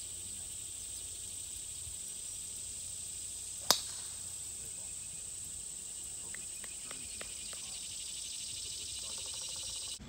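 Golf driver striking a ball off the tee: one sharp crack with a brief ringing, about four seconds in. A steady high-pitched drone of insects runs underneath.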